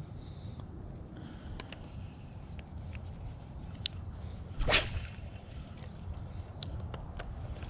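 A spinning rod whipped through the air in a cast, one short, loud swish about halfway through. A few faint clicks come before and after it.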